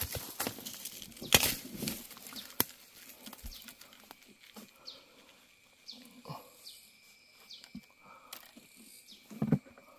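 Rustling and crackling of leaves and stems in forest undergrowth for the first few seconds, then scattered small snaps. Faint short high chirps come through in the quieter second half.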